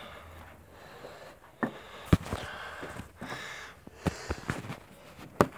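Handling noise of a hand-held phone: several sharp knocks and rubbing against the microphone, with close breathing in between.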